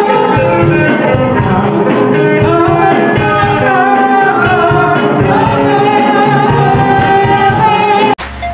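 A woman leading a gospel worship song on a microphone, loud and amplified, with instruments and a steady beat behind her. It cuts off suddenly near the end.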